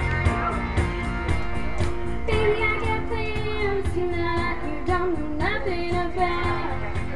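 Karaoke backing track playing over PA speakers with a steady beat, and a girl's voice starting to sing along into a microphone a little over two seconds in.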